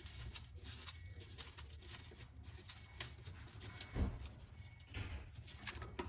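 Socket wrench working a bolt on a truck's intake manifold: scattered light metallic clicks and scrapes, with one louder knock about four seconds in.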